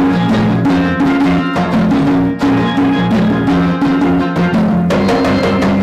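Live band of steel pans, electric bass, acoustic guitar and congas playing an up-tempo Latin groove, the pans ringing over a rhythmic bass line and hand drums. Near the end the notes lengthen into a held chord.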